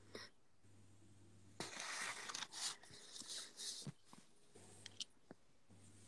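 Fountain pen nib scratching on paper as a handwritten word is finished: about two seconds of close, scratchy strokes, then a few faint ticks.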